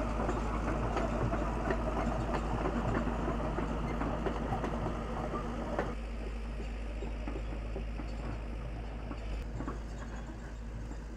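Tracked excavator on the move, its diesel engine running steadily under a constant patter of small clanks from the steel tracks, growing gradually fainter.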